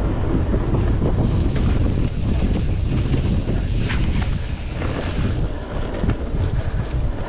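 Wind buffeting a GoPro's microphone as a Norco Torrent steel hardtail mountain bike is ridden at speed, first over a timber boardwalk and then onto dirt singletrack, with tyre rumble and a few short rattles from the bike.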